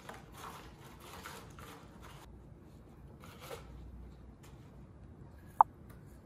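Hands rustling packaging while unpacking a hand cream tube: canvas drawstring pouch and shredded paper filler in a cardboard box rubbed and shifted in short bursts. A single sharp click, the loudest sound, near the end.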